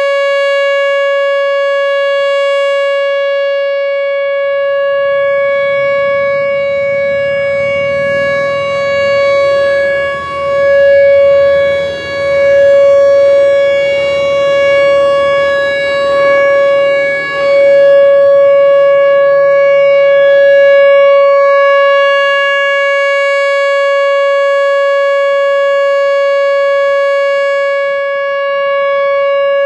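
Whelen Vortex R4 outdoor warning siren sounding its Alert signal: one steady tone held at a constant pitch, wavering briefly in loudness around the middle.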